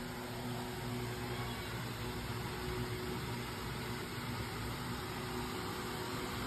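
Steady low machine hum with an even hiss, like a running fan or air-conditioning unit.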